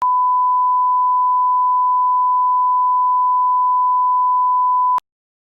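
A steady electronic test tone, one pure unwavering pitch, held for about five seconds and cutting off suddenly.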